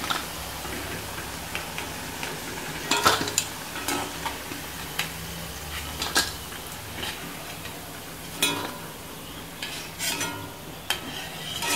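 Oil sizzling steadily in an iron kadai as onion pakodas deep-fry, with repeated sharp clinks and scrapes of a perforated steel skimmer against the pan and a steel bowl as the cooked fritters are lifted out.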